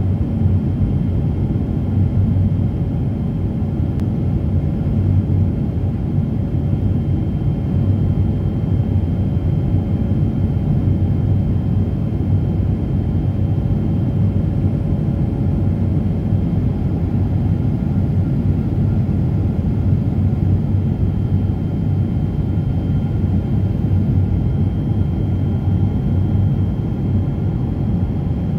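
Jet airliner cabin noise in flight, heard from a window seat beside a turbofan engine: a steady low rumble with a few faint steady tones above it.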